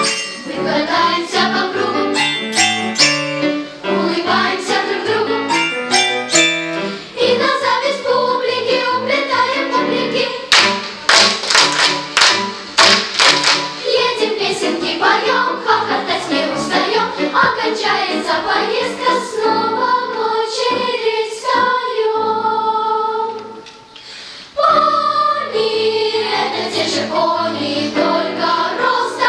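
Children's choir singing a song over an instrumental accompaniment with percussion. The music drops to a quiet passage a little past three-quarters of the way through, then comes back in at full strength.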